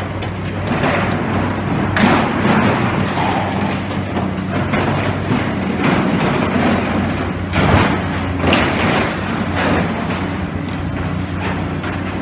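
Demolition excavator's diesel engine running steadily, with irregular crashes and clatter of breaking rubble and metal; the loudest crashes come about two seconds in and again around eight to ten seconds.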